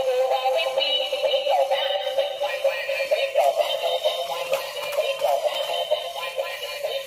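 Battery-operated dancing duck toy playing its built-in song: high-pitched synthetic singing over electronic music, thin and with no bass, from the toy's small speaker.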